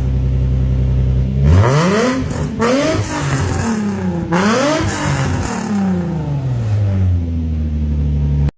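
Infiniti G35 coupe's 3.5-litre V6 running through test pipes and a single-exit Y-pipe exhaust with the silencer removed: idling, then revved three times in quick succession and falling back to idle.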